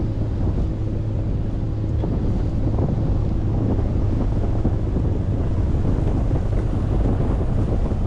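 Steady wind buffeting the microphone over a low, steady motor hum, as aboard a moving boat.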